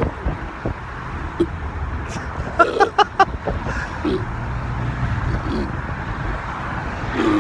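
Steady low rumble of a vehicle or road traffic. Partway through comes a quick run of five or six short pitched vocal sounds, followed by a few brief low ones.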